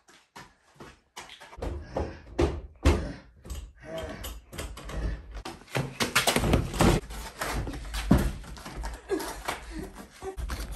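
A run of knocks, thumps and shuffling footsteps in a small bare room, with a low rumble and bits of a voice at times.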